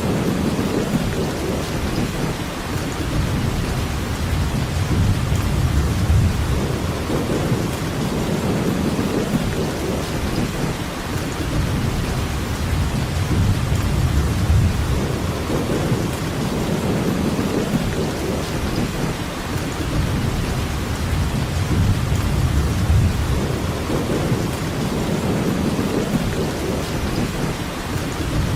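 Steady rainfall, an even hiss, with a low rumble that swells and fades every few seconds.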